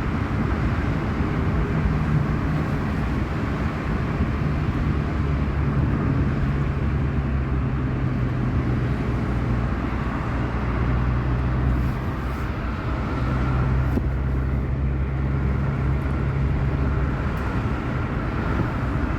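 A moving vehicle's steady drone, a low engine hum with a rushing noise over it, holding an even level throughout.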